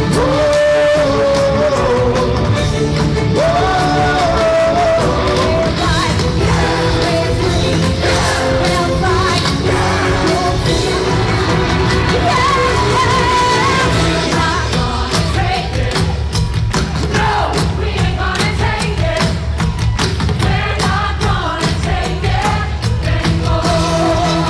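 Show music with a singing voice over a steady bass and beat; the drumming gets busier about halfway through.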